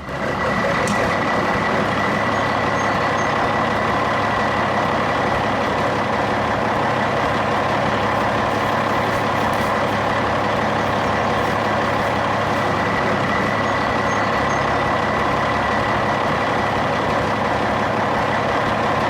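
A heavy truck's engine running steadily, with a thin high whine held throughout; it starts and stops abruptly.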